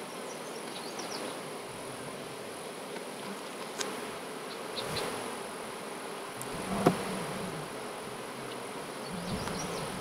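Honey bees buzzing steadily around an opened hive and a frame of bees being moved, with a few light knocks, the sharpest about seven seconds in.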